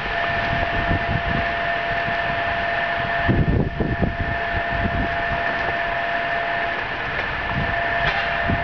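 Steady hiss from the narrow-gauge 2-6-0 steam locomotive, with two steady whistle-like tones held throughout. Wind rumbles on the microphone in gusts, strongest about three and a half seconds in.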